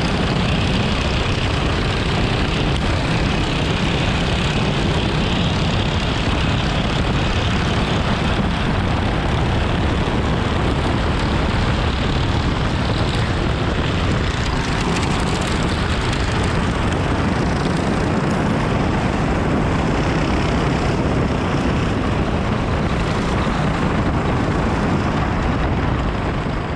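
Onboard sound of a racing dirt go-kart: its single-cylinder four-stroke engine running loud and steady under race load.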